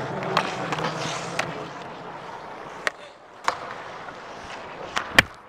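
Ice hockey skates scraping and gliding on rink ice, with a handful of sharp clacks scattered through, the loudest near the end.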